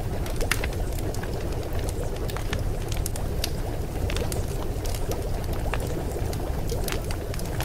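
Steady rushing water sound with small irregular clicks and drips scattered through it, used as the background bed of a subliminal track.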